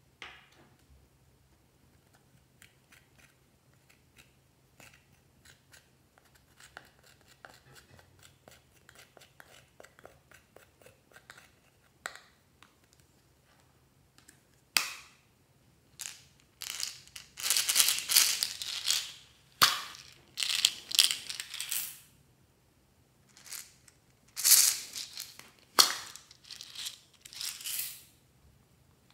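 Pressed eyeshadow being scraped out of plastic makeup palettes with a small tool and crumbled onto slime. It starts as faint scattered ticks and scrapes, then turns into loud scraping in repeated bursts from about halfway through.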